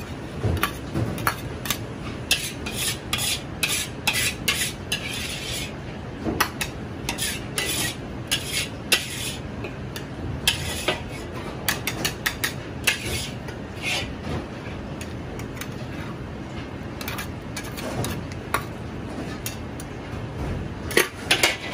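Steel ladle and tongs scraping and clinking against a wok, with repeated irregular scrapes as the last spaghetti is scooped out and piled onto a platter, over a steady low background noise.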